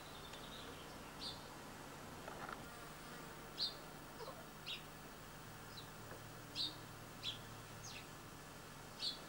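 A bird chirping outdoors: short, high, downward-sliding chirps about once a second, over a steady hiss and a low hum.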